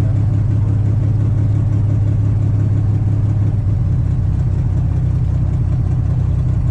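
Mooney 231's turbocharged six-cylinder piston engine running steadily, heard inside the cabin as a loud, low drone. Its note changes about four seconds in.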